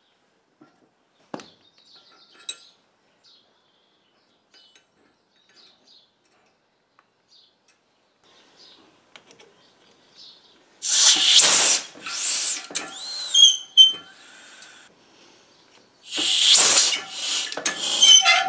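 Compressed air blasting from an air-line hose into a hydraulic ram used as a pneumatic piston: after faint clicks, two loud hissing bursts, the first about eleven seconds in and the second about sixteen, with short puffs between. A short whistle rises and falls during the first burst.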